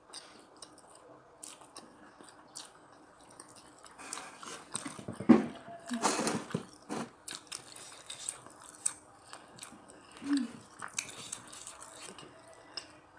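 Close-up chewing of a mouthful of jengkol balado and rice: wet mouth clicks and smacks, busiest and loudest about four to seven seconds in.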